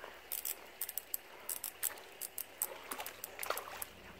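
Fishing reel's drag clicking in short, irregular runs as a small hooked fish pulls line against it; the drag is set half loose.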